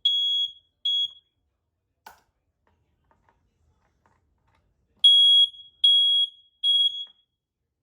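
Household smoke alarm sounding in test mode: loud, high-pitched beeps in groups of three, the standard evacuation pattern. The last two beeps of one group come first, then after a pause of a few seconds a full group of three.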